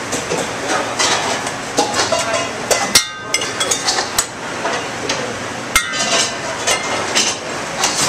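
Restaurant kitchen clatter during service: scattered sharp clinks and knocks of pans, plates and utensils over a steady background of kitchen noise.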